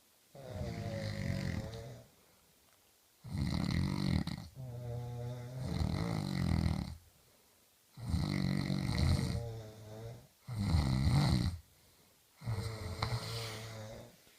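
Two people snoring in turn, one snore after another with short pauses between. One snore is higher and rattly, the other deeper, and sometimes one starts just as the other ends.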